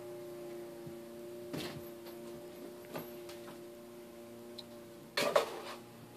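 Kitten spitting twice: a short spit about one and a half seconds in and a louder one about five seconds in, over a steady hum.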